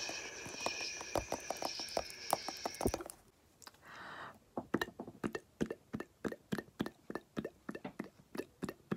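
Quick, repeated tapping and dabbing of a makeup sponge and brushes against the camera lens, about three to four taps a second. For the first three seconds a steady high tone sounds under the taps; a short hiss comes about four seconds in.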